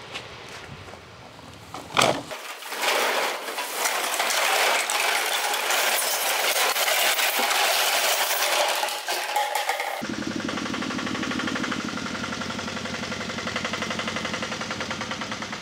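A knock about two seconds in, then a dense rattling clatter of hard plastic PVC pipe fittings tumbling against each other. About ten seconds in this cuts to the steady low hum of a small goods truck's engine running.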